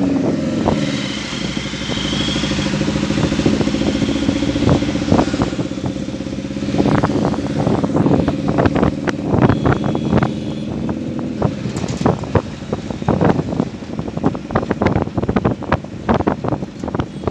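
Engine of a moving vehicle running steadily, heard from on board in traffic. From about seven seconds in, rapid irregular thumps and flapping, like wind buffeting the microphone, take over.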